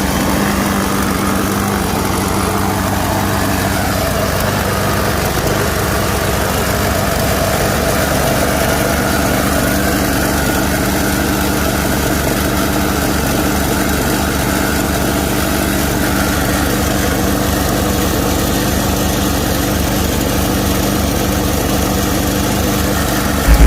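Craftsman 6.5 hp lawnmower engine running at a steady speed, brought back from a no-start after a seized throttle cable was freed and the spark plug cleaned.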